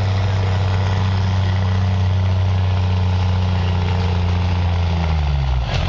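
Diesel pickup truck engine at full throttle pulling a sled, a loud steady drone. About five and a half seconds in its pitch drops as the engine comes off the power.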